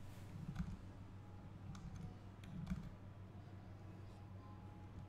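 A handful of faint, scattered clicks from a computer mouse and keyboard being used, over a low steady hum.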